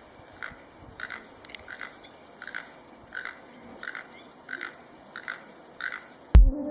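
Keel-billed toucan giving short, dry, frog-like croaking calls about every half second. Near the end, music cuts in with a deep bass hit.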